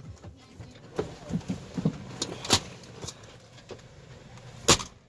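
Scattered clicks, taps and rustles of things being handled inside a car cabin, with a sharp knock near the end.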